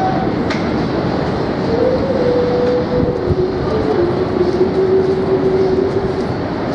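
Subway train noise at an elevated platform: a steady, loud rail rumble with a whine that steps down in pitch, as an R179 subway train stands with its doors opening. A sharp click comes about half a second in.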